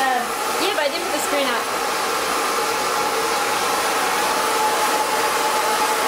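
Handheld hair dryer blowing on wet hair, a steady rush of air with a constant whine in it.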